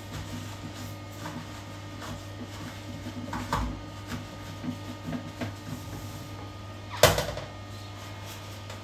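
Gloved hand wiping a cloth over a ceramic toilet cistern, with faint rubbing and scuffing. About seven seconds in, a sharp single knock as the plastic toilet lid is lifted and hits the cistern. A steady low hum runs underneath.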